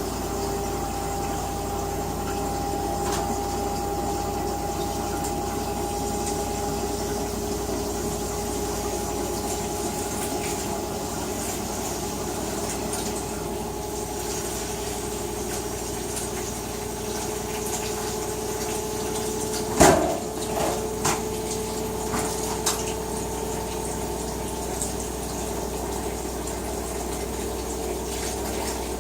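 LG WT-R852 direct-drive washing machine running, with water rushing through it over a steady hum whose pitch creeps slowly up. A single thump about twenty seconds in is followed by a few lighter clicks.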